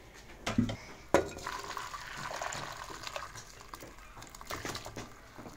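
Two metal pots clank against each other, then hot broth and chicken feet pour out of a pressure cooker into an aluminium karahi, splashing for about two seconds.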